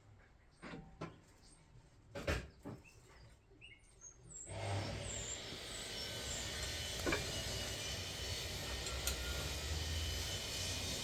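A few faint knocks and clinks, then from about four and a half seconds in a steady low rumble of background noise, with birds chirping now and then.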